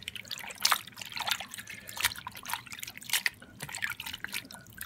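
Wet walleye skins squeezed and kneaded by hand in a basin of tanning solution: irregular splashes, sloshes and drips of the liquid.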